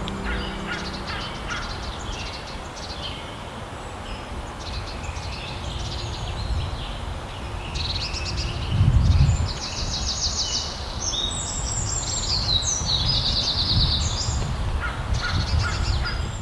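Birds calling, many short harsh calls overlapping, with fast chattering runs in the second half, over a steady low rumble that swells briefly about nine seconds in.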